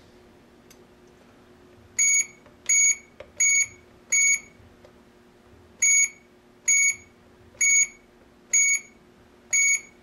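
Alarm control panel keypad beeping as keys are pressed: nine short, identical high-pitched beeps, four in quick succession and then, after a short pause, five more.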